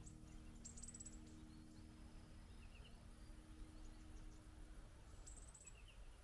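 Near silence in bushland, with faint small birds giving a few short high chirps and quick trills. A faint steady low hum fades out about three-quarters of the way through.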